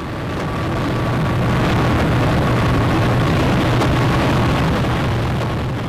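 Bus on a highway, its engine hum and road noise rising as it comes near and falling away as it passes.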